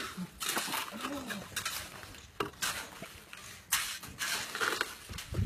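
Construction work: irregular scraping and clattering noises, about one burst a second, with faint voices in the background.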